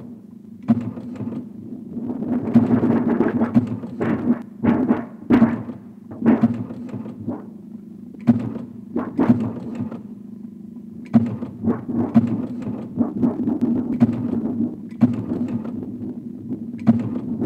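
Experimental music built from printing press and machinery sounds: irregular mechanical thunks and clanks over a steady low hum.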